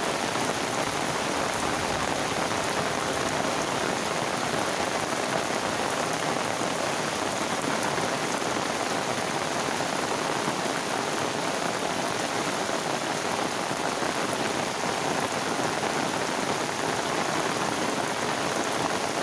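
Heavy rain falling steadily, a constant even hiss of drops with no let-up.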